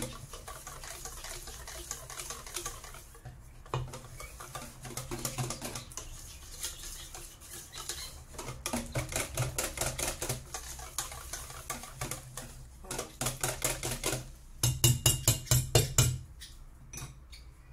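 Wire whisk beating thin crêpe batter in a stainless steel bowl: rapid, rhythmic clicking and scraping of the wires against the metal, with a couple of short pauses and the hardest strokes a couple of seconds before the end.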